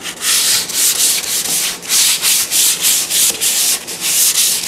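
Hand-held sheet of sandpaper rubbed back and forth over a painted cabinet door, a few hissing strokes a second. It is smoothing the dried first coat of cabinet enamel before the final coat.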